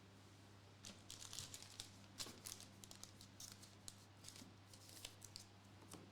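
Faint crinkling and rustling with light clicks as trading cards and their plastic wrappers and sleeves are handled, starting about a second in and going on in quick irregular scrapes.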